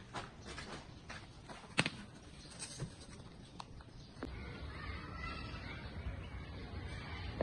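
Hand scooping and spreading soil mixed with broken brick rubble in a brick planter: scattered scrapes and sharp clicks of stone and brick fragments, the loudest about two seconds in. About halfway through this gives way to a steady low rumble with faint wavering tones above it.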